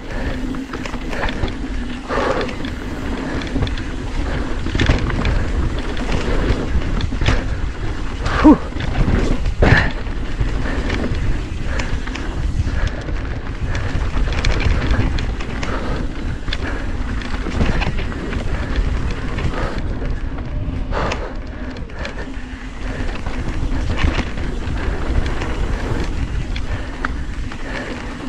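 YT Decoy electric mountain bike descending a dirt trail: a steady rumble of tyres rolling over the dirt with wind on the microphone, and many short rattles and knocks from the bike over bumps, the hardest two about eight and a half and ten seconds in.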